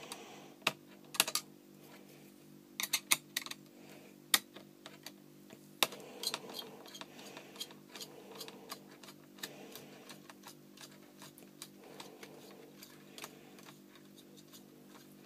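Screwdriver turning out the sprung captive screws of a laptop's CPU heatsink: irregular small, sharp metal clicks and ticks, several in quick clusters in the first half.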